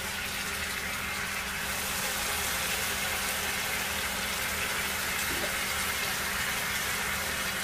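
Marinated chicken pieces sizzling in a hot frying pan with a steady hiss, which grows slightly brighter about two seconds in.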